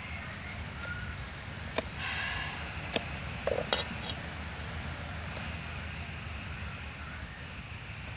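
Bottle gourd being cut by hand on a floor-mounted curved boti blade, with a few sharp clinks and knocks as the pieces go into a steel bowl and are handled in it, the loudest about three and a half seconds in.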